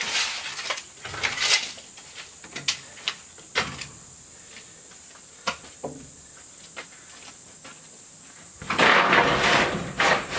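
Scattered knocks, clicks and scrapes of hand work on a wooden shed frame, with a louder rough scraping noise lasting about a second and a half near the end, over a steady high-pitched hum.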